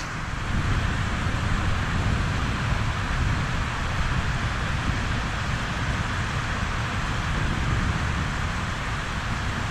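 Steady hiss of rain and wind, with wind buffeting the microphone in an uneven low rumble.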